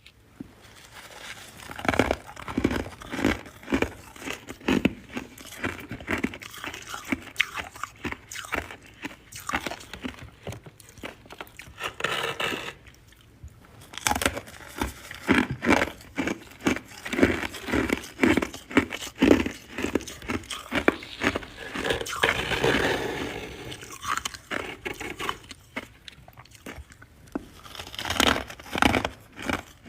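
A person biting and chewing ice, a run of crisp crunches with a brief pause about halfway through.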